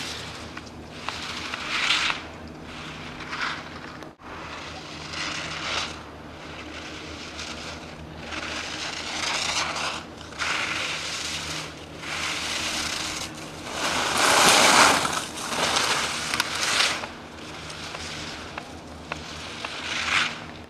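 Ski edges scraping on snow as a giant slalom racer carves turn after turn through the gates: a rasping swish with each turn, every one to three seconds, the loudest a little past the middle. A steady low hum runs underneath.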